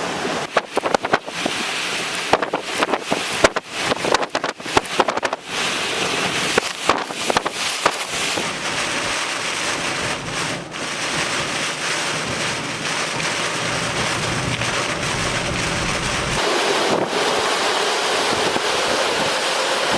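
Tropical-storm wind buffeting the microphone. For the first several seconds it comes in rapid, choppy gusts with sharp blasts, then it settles into a steadier rush.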